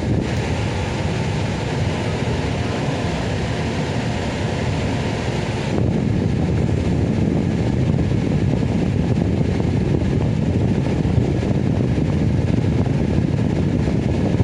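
Steady running noise inside a bus, from its engine and air conditioning. About six seconds in it turns a little louder and duller.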